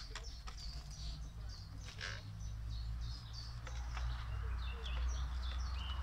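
Small songbirds chirping and twittering in quick repeated high notes, over a low steady rumble. A soft rustle of hands in potting soil comes in near the end.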